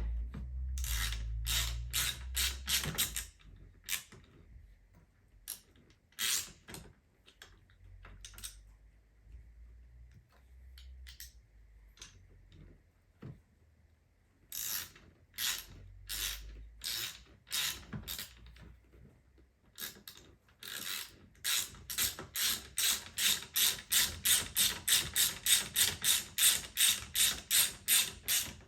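Hand socket ratchet clicking as a bolt is run in on a car seat rail. Short runs of clicks come with pauses between them, then a steady, louder run of about four or five clicks a second near the end.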